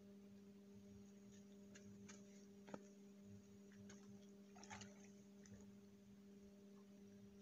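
Near silence: a faint steady hum with a few faint ticks, one nearly 3 seconds in and a small cluster a little before 5 seconds.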